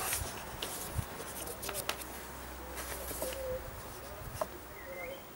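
Hands handling the plastic air intake hose and air filter box in a car's engine bay: a few sharp clicks and knocks. Birds chirp faintly in the background.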